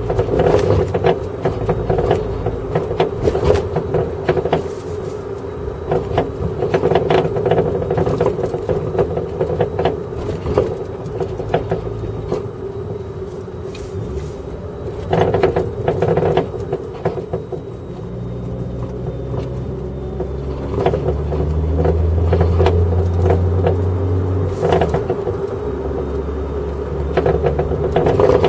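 Rear suspension of a Toyota JZX100 knocking and clunking again and again over the road, heard from inside the car with the rear seat removed, over a steady road and drivetrain drone. The knocks come from a dead upper pillowball mount on the rear Öhlins PCV coilover.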